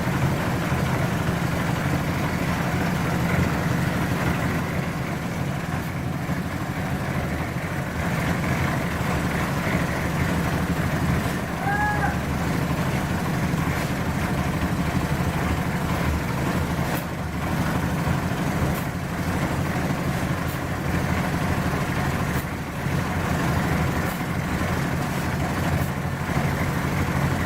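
An engine running steadily with a constant low drone, with a few sharp knocks in the second half.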